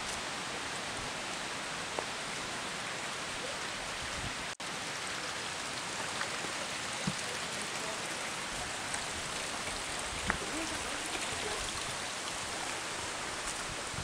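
Steady rushing of the Kyngyrga, a mountain river running over rocks, with a few faint clicks; the sound drops out for an instant about four and a half seconds in.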